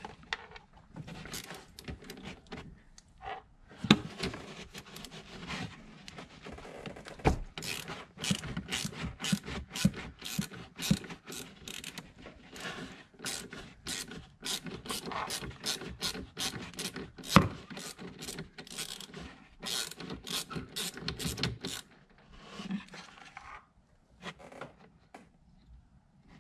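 Socket ratchet clicking in quick runs while working the 10 mm nut on a car battery terminal to fasten a ground wire, with a few sharper knocks in between.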